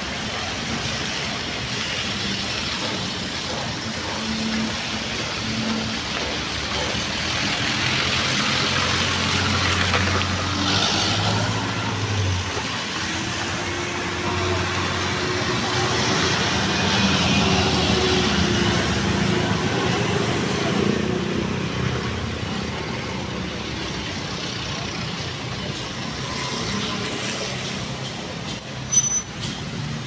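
Road traffic passing close by: engines of vans, trucks, cars and motorcycles running and swelling as they pass, with a brief sharp knock near the end.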